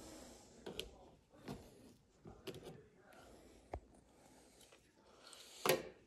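Handling noise from a plastic thermostat wall plate being worked with a screwdriver: a series of separate small clicks and knocks, the loudest one near the end.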